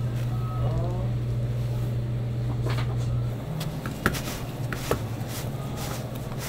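A steady low machine hum. Over it come light rattling and clicking as a chimney cake on its metal roller is turned in a tray of sprinkles and a metal spoon scoops sprinkles over it, with a few sharp clicks in the second half.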